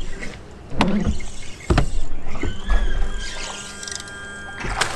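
Three sharp knocks about a second apart on a fishing boat, then a steady electric motor whine of several tones together for about two seconds.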